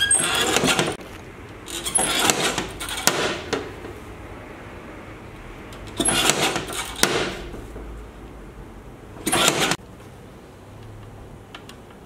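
Lever-arm guillotine paper cutter, its blade brought down to shear photo paper, a cut roughly every two or three seconds, each a loud scraping stroke about a second long.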